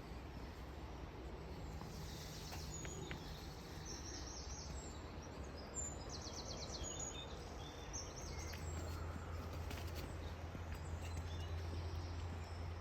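Small birds calling with short high chirps and one quick trill about halfway through, over a steady low outdoor rumble.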